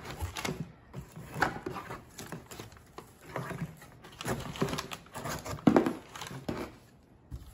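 Crumpled kraft packing paper crinkling and a cardboard carton rustling as hands work a gift box and its ribbon, in irregular bursts with short pauses.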